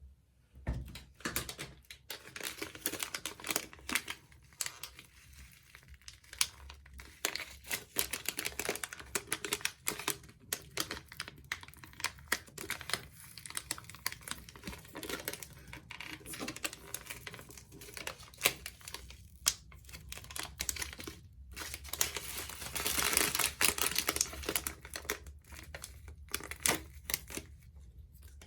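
Soapy bath sponges soaked with purple Pine-Sol being squeezed by hand, giving a dense, continuous crackling of rapid clicks. The crackling grows louder and hissier for a few seconds about two-thirds of the way through.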